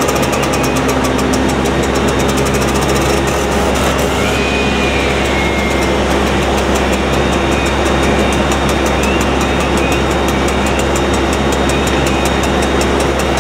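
An engine running steadily at a constant speed, with a fast faint high ticking over it.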